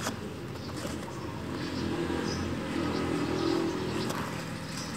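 Low rumble of a passing motor vehicle, growing louder through the middle and fading again.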